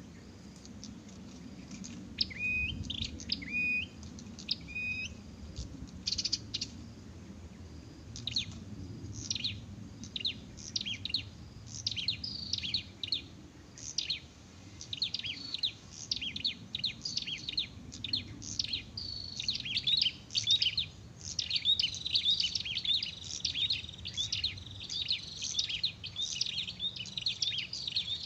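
Prinia (prenjak) song: short chirped phrases, spaced out at first, then from about halfway a fast, nearly unbroken run of chirps that gets louder.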